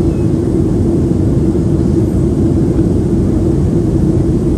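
Steady drone of a Boeing 737-700 as heard from inside the cabin: engine and airflow noise, even and unbroken, with a strong steady hum in the low range.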